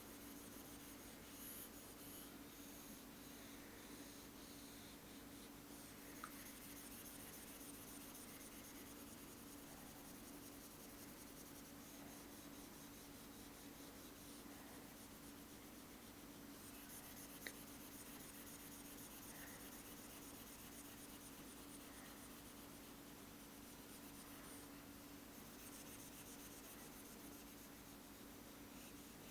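Faint rubbing and scratching of a stylus on an interactive whiteboard screen as colour is filled in, over a steady low room hum, with two small ticks of the pen tip on the glass.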